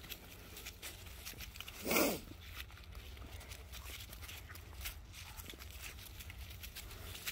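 Cane Corso puppies playing and scuffling: faint scattered ticks and rustles, with one short, louder breathy dog sound about two seconds in.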